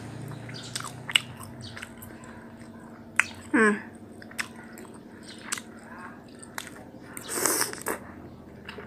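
Close-up mouth sounds of someone chewing pempek fish cake dipped in cuko sauce, with scattered sharp clicks and smacks. A short breathy rush of air comes near the end.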